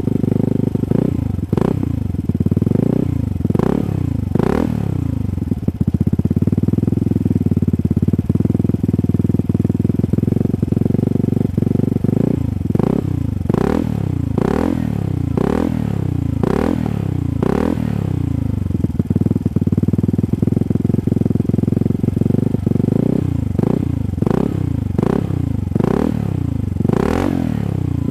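Vespa Sprint 150's single-cylinder four-stroke engine through a Shijiro Baby Monster aftermarket exhaust run without its dB-killer insert, idling and blipped on the throttle. Three runs of quick repeated revs, each rising sharply and dropping back to idle, come between stretches of steady idle.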